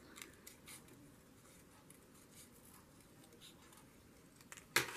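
Faint paper handling: light rustling and small clicks as a little scrap of paper is trimmed with scissors and turned in the fingers, with a louder, sharp double snap near the end.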